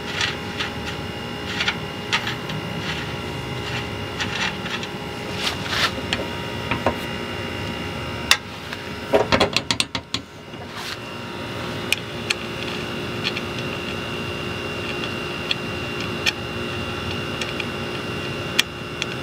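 Hand wrench working the nut off a Model A tie rod end: scattered metallic clicks and taps, with a run of quick clicks about nine seconds in. A steady background hum runs underneath.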